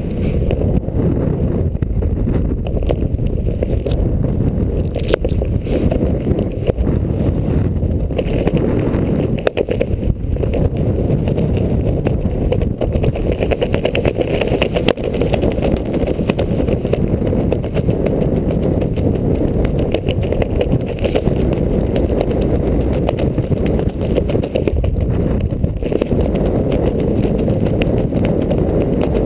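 Loud, steady wind rushing over the microphone, a low rumble with constant buffeting.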